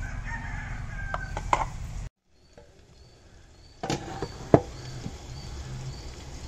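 A spoon clicking and knocking against a bowl as chilli powder is spooned over raw chicken pieces, with birds calling in the background. The sound drops out for nearly two seconds in the middle, and a single sharp knock comes about four and a half seconds in.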